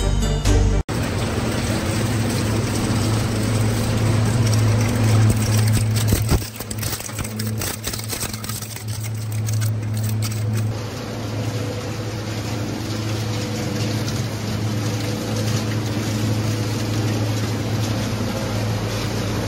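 A second of intro music cuts off, giving way to the steady hum of recycling-plant machinery with a strong low mains-motor tone. From about 6 to 10 seconds a twin-shaft shredder's blades crack and crunch through copper clad laminate strips. After that comes a steadier, softer machine hum.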